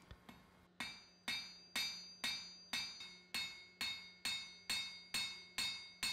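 Hand hammer striking a hot 3 mm steel strip on the anvil face, forging a taper on its end: an even rhythm of about two blows a second after a short pause near the start, each blow with a bright metallic ring that dies away.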